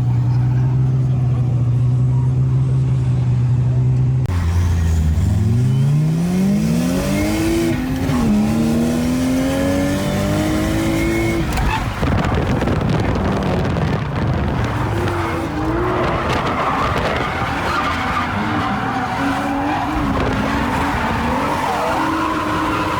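Drift car engine holding steady revs, then, after an abrupt change about four seconds in, revving up in repeated rising sweeps. From about halfway, tyres screech and skid over the engine as the car slides through a drift.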